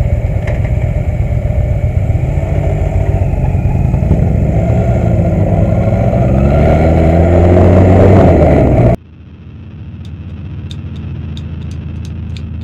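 Sport motorcycle engine accelerating, its pitch climbing, under heavy wind noise; the sound cuts off abruptly about nine seconds in. A quieter stretch follows, with a low hum and a run of light ticks.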